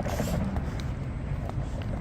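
Outdoor street ambience: a steady low rumble of traffic, with a few faint ticks.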